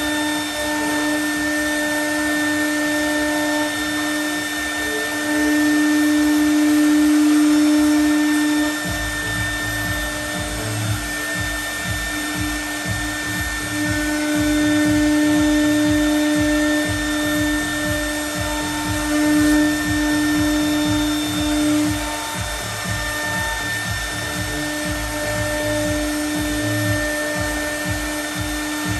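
CNC router spindle milling aluminium composite panel: a steady high whine that grows louder and softer as the cutter works through the sheet. A low rumble joins about nine seconds in.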